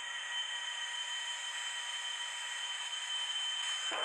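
DeWalt cordless drill spinning a wire brush against a brake caliper, scrubbing rust and dirt off its outer face. A steady high whine with a hiss from the bristles, stopping suddenly at the end.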